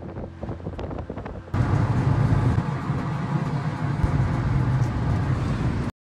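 Car driving at speed: steady road and wind noise with a strong low rumble. It starts suddenly about a second and a half in, after a quieter stretch with a few clicks, and cuts off abruptly near the end.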